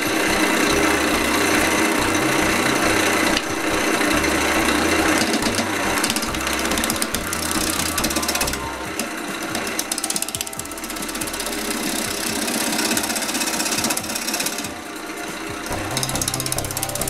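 Wood lathe spinning a dry mountain ash (rowan) blank while a large spindle gouge roughs it down, a loud, rough, steady scraping of the cut. It eases off briefly a few times as the tool pauses between passes.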